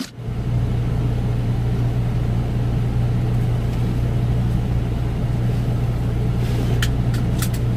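Semi truck's diesel engine running, heard from inside the cab as a steady low drone that holds one pitch. A few short clicks come near the end.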